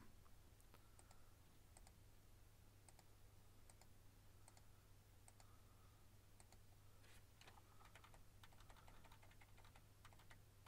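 Faint clicks of a computer mouse and keyboard: single clicks every second or so, with quicker runs of clicks in the second half, over a low steady hum.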